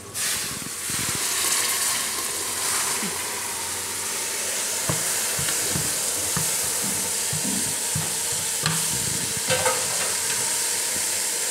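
Chopped raw jackfruit dropped into hot oil with onion, tomato and spices in an aluminium pressure cooker, setting off a sizzle that starts suddenly and carries on steadily. A few light knocks sound against the pot partway through.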